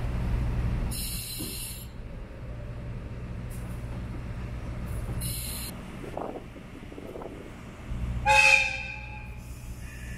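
Train horn sounds once about eight seconds in, a single pitched blast of about a second, over the steady low rumble of the diesel-hauled train. Two short hisses come earlier.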